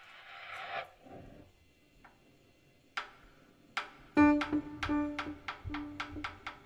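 Free-improvised music from prepared guitar, prepared piano and extended snare drum: a brief rising scrape of noise, a quiet stretch broken by two sharp clicks, then from about four seconds in a fast, even tapping, roughly five clicks a second, over a held low tone.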